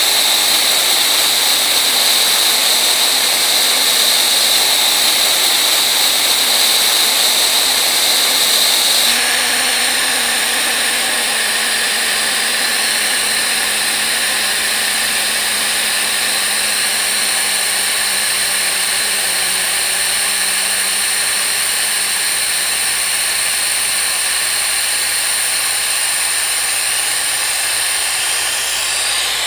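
Compressed-air venturi vacuum filler (AirLift type) hissing loudly as shop air rushes through it, pulling a vacuum on a car's cooling system before the coolant is drawn in. A high whistle in the hiss drops away about nine seconds in, and the rush carries on steadily.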